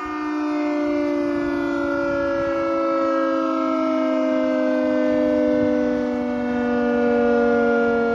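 Secomak GP8 air raid siren running on a 415 V supply, sounding its wail. Its two close, discordant tones and their overtones slide slowly down in pitch.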